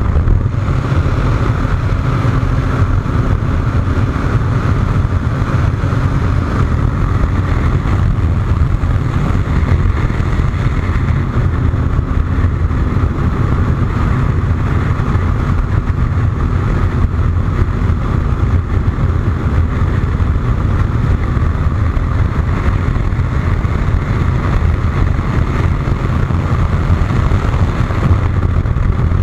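Steady wind rush on the microphone while riding a Honda motorcycle at highway speed, with its engine running evenly underneath.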